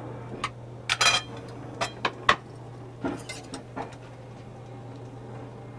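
Utensils clinking and tapping against a plate and pan as fish and sauce are dished up, in scattered knocks with a small cluster about a second in. A steady low hum runs underneath.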